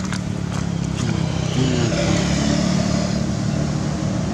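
A motorbike engine running and revving, growing louder over the first second or two, with a few light clicks near the start.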